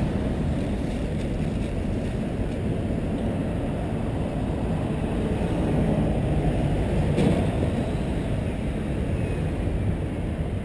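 Steady low rumble of city road traffic, fading out near the end.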